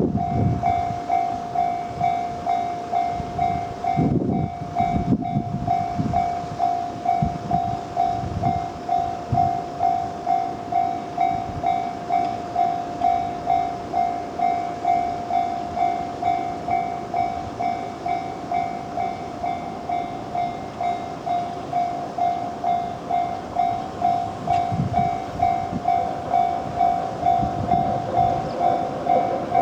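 Japanese level-crossing warning bell ringing in an even, repeating ding, about one and a half to two strokes a second. Under it is the rumble of a train on the rails, swelling briefly a few seconds in and again near the end.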